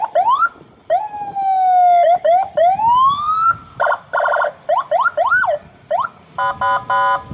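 Senken CJB100BD electronic vehicle siren cycling through its tones: short rising chirps, a long falling tone, a slow rising sweep, a quick rise-and-fall, and bursts of fast stepped beeps, changing pattern every second or so.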